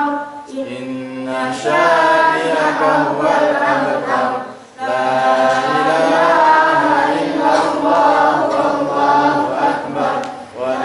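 A boy reciting the Qur'an aloud into a microphone in a melodic, chanted style, holding and bending long notes. The phrase breaks off briefly about four and a half seconds in, then resumes, with a short breath pause near the end.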